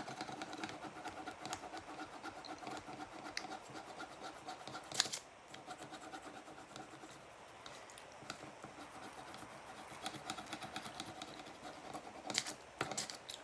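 Marker scribbling on paper as a small piece is coloured in: many quick, faint scratchy strokes, with one sharp click about five seconds in, over a faint steady hum.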